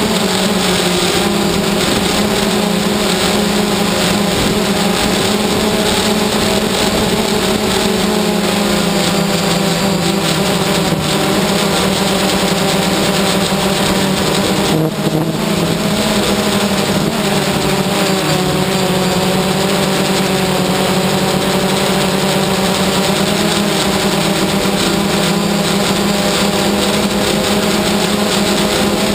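DJI Phantom quadcopter's electric motors and propellers buzzing steadily in flight, heard up close from the camera on the drone, the pitch shifting slightly now and then as it manoeuvres.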